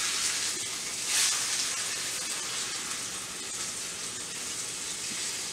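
Beef rump roast sizzling steadily as it browns in a hot skillet, with a brief louder flare of sizzle about a second in.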